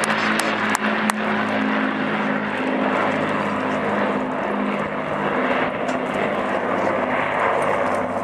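Avro Lancaster bombers' Rolls-Royce Merlin piston engines droning steadily overhead, their several engines beating against each other in a slow throb. A few sharp clicks sound in the first second.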